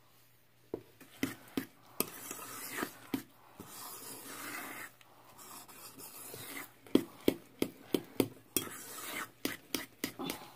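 Metal spoon stirring thick oat-and-banana batter in a stainless steel mixing bowl, scraping around the bowl and clinking against its sides, with a quick run of clinks in the second half.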